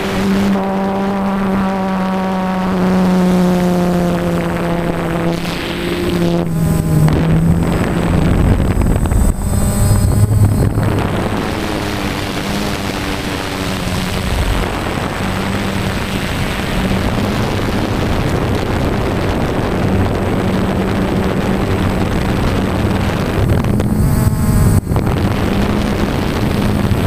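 Onboard sound of a radio-controlled FPV aircraft in flight: a steady motor and propeller hum over wind noise on the microphone. The hum drops in pitch about five seconds in, then keeps changing with the throttle.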